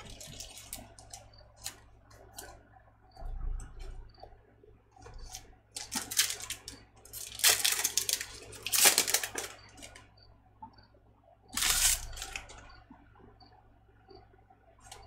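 A trading-card pack wrapper being torn open and crinkled by hand, in a few short loud bursts of tearing noise between quieter handling of the cards.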